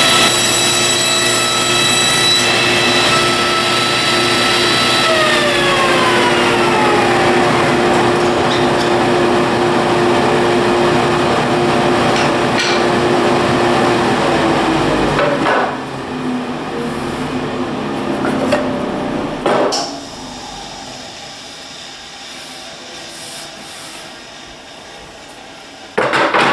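Power saw running at speed after crosscutting a red oak board, switched off about five seconds in, its whine falling in pitch as the blade coasts down to a stop over several seconds. A few sharp knocks of wood being handled follow.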